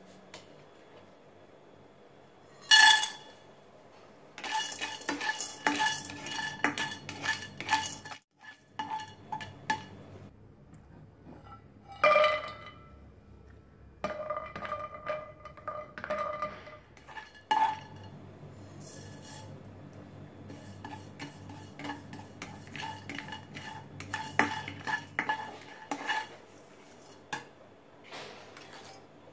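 Plastic spatula stirring and scraping peanuts, cashews and sesame seeds around a nonstick wok, with irregular clattering. Two louder strikes, about three seconds in and about twelve seconds in, set the pan ringing.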